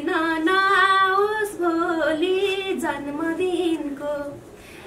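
A woman singing a Nepali folk tune with no instrument clearly heard, holding long notes with small turns in pitch, pausing near the end.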